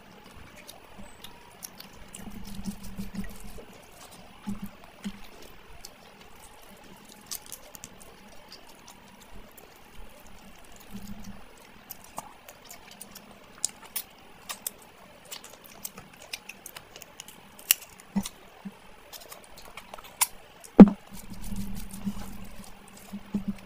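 Close-miked eating sounds: wet chewing and smacking on mutton curry and rice eaten by hand, with many sharp mouth clicks and one louder click near the end.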